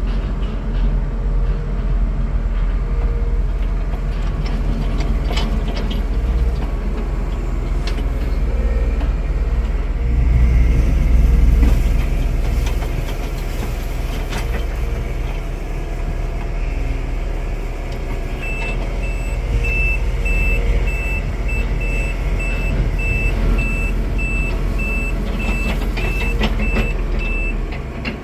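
Heavy diesel construction machinery running with a steady low rumble, rising in loudness around the middle, with scattered knocks. From about two-thirds of the way in, a reversing alarm beeps about twice a second and stops shortly before the end.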